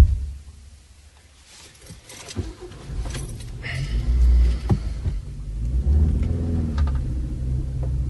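Car sound effects: a door slams at the very start, a few clicks follow, and about three seconds in the car's engine starts and runs, its pitch rising and falling as it revs.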